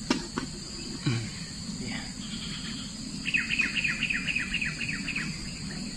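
A steady high insect drone, with a bird calling a quick run of about ten short falling notes, about five a second, midway through.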